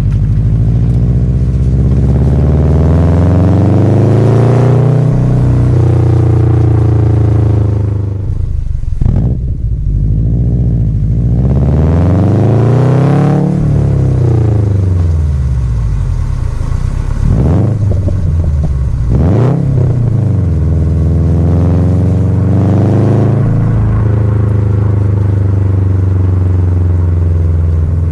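Subaru WRX STI's turbocharged flat-four boxer engine pulling through the gears. The revs climb and drop several times, with quick rev blips about nine seconds in and again near nineteen seconds.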